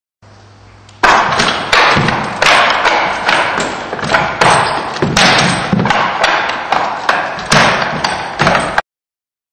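A wooden kung fu dummy being struck and blocked against in a fast run of sharp wooden knocks, about two to three a second. It starts about a second in and cuts off abruptly near the end.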